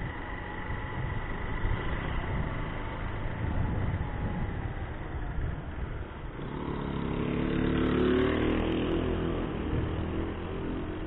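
Motorcycle riding along a paved street: engine running under steady wind rumble on the microphone. About halfway through, a stronger engine note comes in and the sound swells, loudest about eight seconds in.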